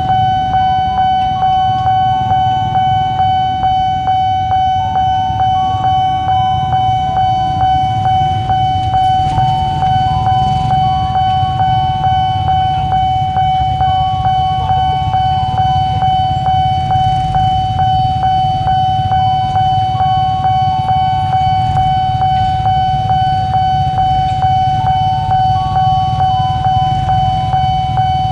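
Railway level-crossing warning alarm sounding: a steady high tone with a short stepped melody that repeats about every five seconds, plus regular clicking. Under it runs the low rumble of road traffic waiting at the crossing.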